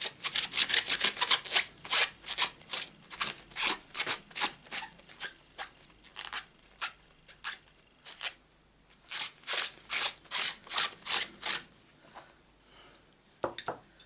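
An inked stamp being scrubbed clean, rubbed back and forth in quick strokes, two or three a second, which stop shortly before the end. A couple of sharp clicks follow near the end.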